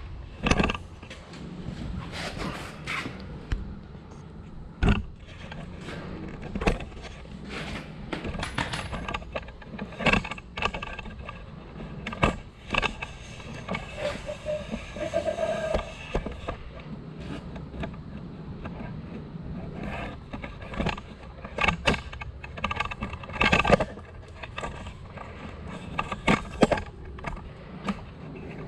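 Camera handling noise: irregular knocks, clicks, scrapes and rattles as the camera is carried and set up.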